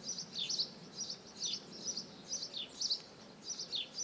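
Small songbirds chirping: a quick run of short high chirps several times a second, with a falling note about once a second.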